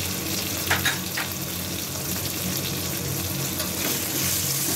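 Tomatoes with freshly added ginger paste and ground coriander and cumin sizzling steadily in hot oil in an iron wok. A metal spatula scrapes and clinks against the pan a few times about a second in as the masala is stirred.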